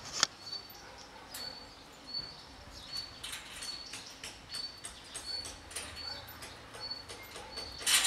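A bird repeating a short, high, even chirp about every three-quarters of a second. Scattered faint clicks, a sharp knock just after the start and a louder short burst of noise near the end sound over it.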